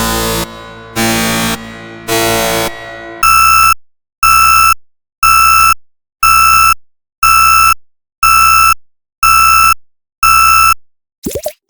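Electronic alarm sound effect: three harsh buzzing pulses about a second apart, then eight identical electronic beeps, one a second, and a short rising glide near the end.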